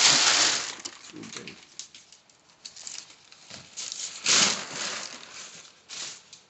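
Rustling with scattered light clicks and knocks, loudest in two rustling bursts: one at the start and one about four seconds in.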